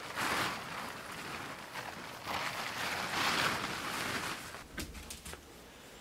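Plastic tarp rustling and swishing in repeated swells as it is pulled and spread over tomato plants to shield them from frost. It dies down near the end, with a few light clicks.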